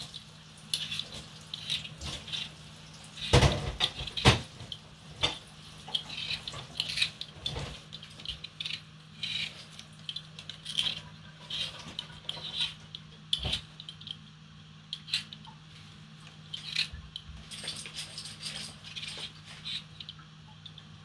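Potato being peeled by hand: many short scraping strokes of a blade against the skin. A few sharper knocks stand out, the loudest two close together a few seconds in, over a steady low hum.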